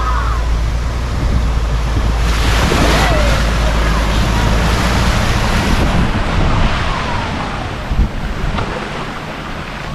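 A Vauxhall Insignia estate driving through a flooded ford, its wheels throwing up water in a steady rushing splash that is loudest as it passes, about two to six seconds in, then eases off. Wind buffets the microphone, and there is a short knock near the end.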